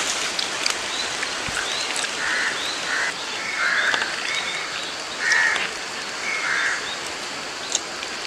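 Repeated short animal calls, about four pairs of calls spread across a few seconds, with a few higher chirps, over a steady outdoor hiss.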